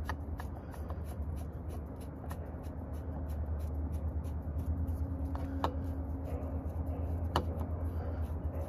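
Hand screwdriver unscrewing a screw on a dirt bike's carburetor: faint, repeated scratchy ticks with two sharper clicks in the second half, over a steady low hum.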